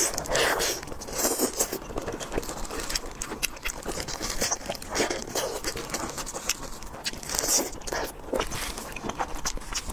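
Close-miked biting and chewing of food: a dense run of crunches and crackly clicks.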